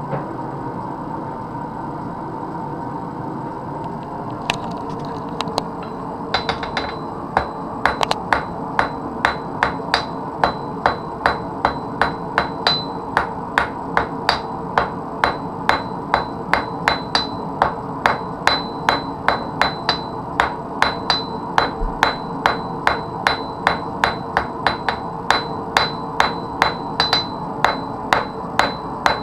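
Blacksmith's hand hammer striking metal on an anvil, each blow ringing. A few isolated blows come a few seconds in, then the strikes settle into a steady rhythm of about two a second, over a steady background noise.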